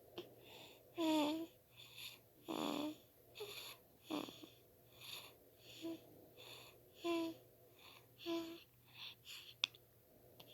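Newborn baby snoring: short noisy breaths about once a second, several of them ending in brief high squeaks.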